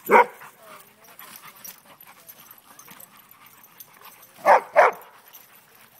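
Dogs play-fighting: one loud bark right at the start, then two quick barks about four and a half seconds in.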